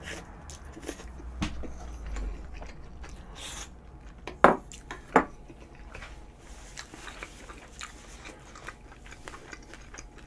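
Close-miked chewing of a mouthful of curry and rice: soft wet mouth noises and small clicks, with two sharp, louder mouth sounds about four and a half and five seconds in.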